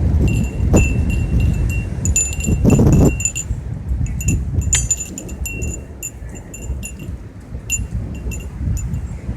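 Metal wind chimes ringing repeatedly in short, irregular strikes at the same few high pitches, stirred by storm wind. Under them runs a steady low rumble of wind and storm.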